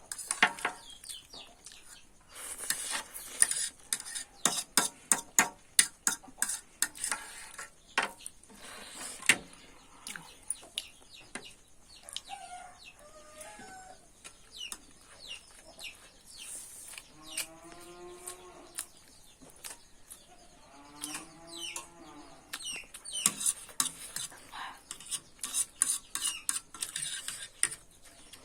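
Eating sounds: a utensil clicking and scraping against a dish in quick clusters of sharp ticks while noodles are eaten. Chickens cluck in the background a few times, in the middle of the stretch.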